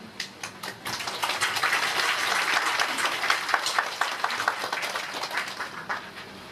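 Audience applauding: a few scattered claps at first, swelling to full applause, then dying away near the end.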